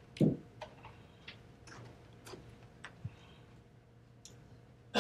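Scattered small clicks and light knocks, about a dozen at uneven intervals, with one louder thump about a quarter second in, over a faint steady hum.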